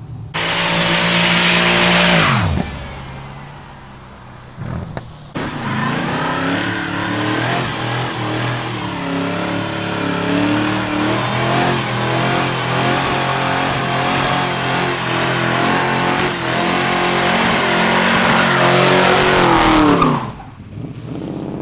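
Car engines held at high revs during burnouts, the tyres spinning and squealing on the asphalt. One engine's revs fall away about two seconds in; after a cut, another runs at wavering high revs for most of the stretch and then drops off near the end.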